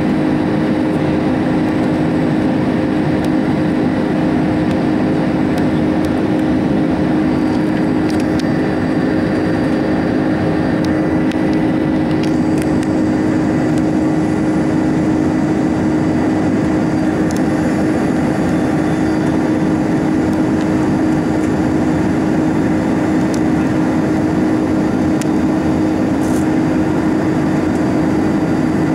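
Airbus A310's wing-mounted turbofan engines at climb power just after takeoff, heard inside the cabin over the wing: a steady drone with a constant low hum.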